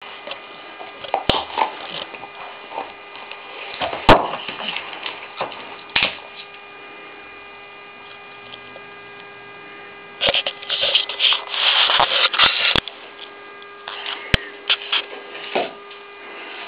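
American Staffordshire terrier gnawing a large bone: scraping and crunching in bursts, heaviest a little after the middle, with several sharp knocks as the bone hits the wooden floor. A steady electrical hum runs underneath.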